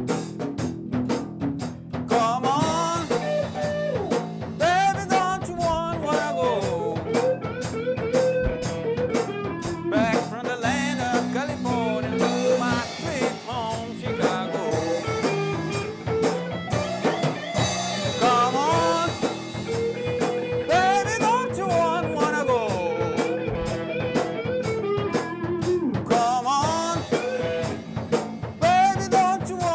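Blues-rock band playing: a drum kit keeping a steady beat under bass and a lead line of bending notes, in the manner of an electric guitar solo.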